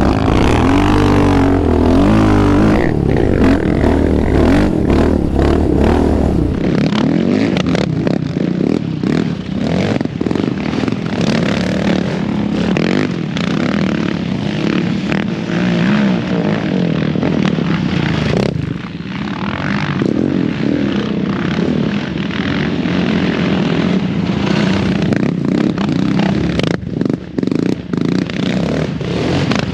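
Yamaha Raptor 700R's single-cylinder four-stroke engine revving hard through its aftermarket exhaust, heard up close from the seat. About six seconds in, the sound changes to several sport quads riding past, their engine revs rising and falling.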